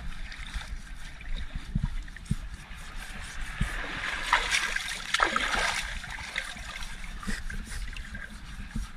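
Shallow sea water splashing and lapping against a small boat's hull while the fouled side is scrubbed with a metal-shaving scouring pad, with scattered low bumps.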